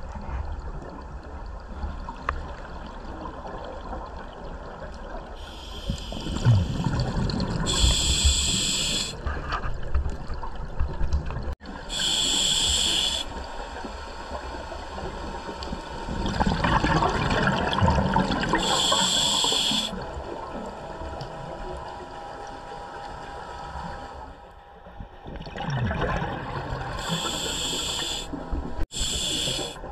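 Scuba diver breathing through a demand regulator: several breaths, each a short hiss on the inhale alternating with a longer bubbling exhale.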